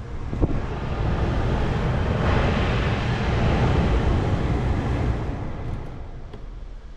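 SsangYong Tivoli diesel engine cranking on the starter motor for about six seconds without catching, the crank rhythm running fast and even before it dies away; the engine is a no-start.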